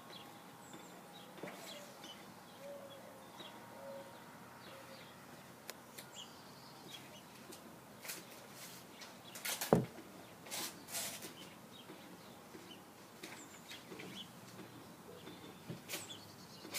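Birds calling outdoors: scattered short chirps and clicks, with one loud, sharp call or crack about ten seconds in.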